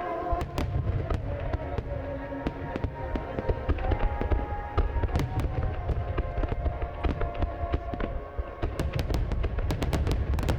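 Large aerial fireworks barrage: constant low booms of bursting shells with many sharp cracks, the crackling growing dense near the end. Music with long held notes plays underneath.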